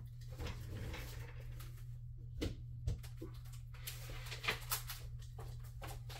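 Faint handling noise: scattered small clicks and short rustles of objects being handled and set down, over a steady low hum.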